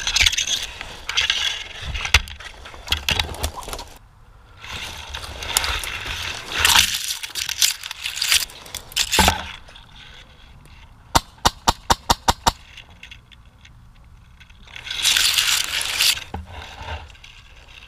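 Rustling and crunching of someone pushing through pine branches and over snow, in several long bursts. Partway through comes a rapid string of about eight sharp cracks.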